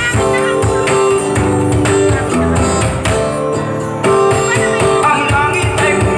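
Live acoustic band playing: a steel-string acoustic guitar picking and strumming over regular cajon beats, with a woman's singing coming in near the end.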